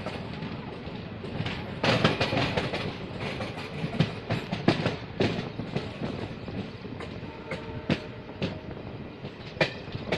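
A train running along the track, heard from a carriage window. A steady rumble is cut by irregular sharp clicks as the wheels cross rail joints, with a louder stretch about two seconds in.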